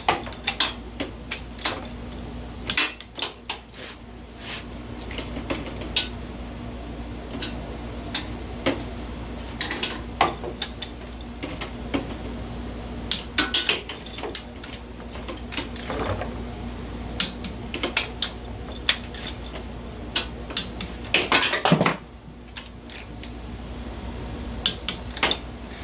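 Ratchet and torque wrench tightening the cylinder-head acorn nuts on a Honda FourTrax 300 engine: irregular metallic clicks and clinks of the tool on the nuts. This is the final torquing pass of the top-end rebuild.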